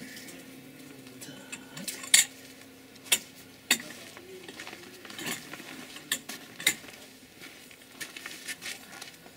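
Steel tools clinking during a wheel change: a wheel brace and a steel pipe extension knocking against each other, giving several sharp metallic clanks at uneven intervals.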